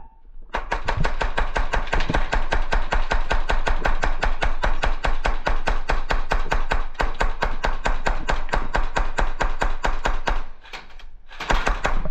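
Airsoft gun firing full-auto: a long, fast, even run of shots lasting about ten seconds, a brief stop, then another short burst near the end.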